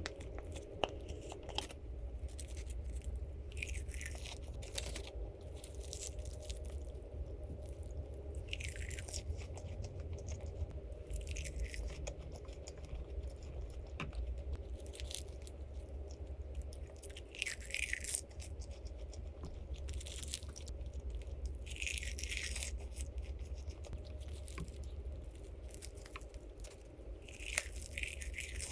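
Person eating crunchy food: short crunching bites every few seconds over a steady low hum.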